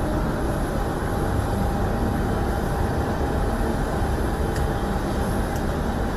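Steady low rumble of distant aircraft engines across an airfield, with a couple of faint ticks about two-thirds of the way in.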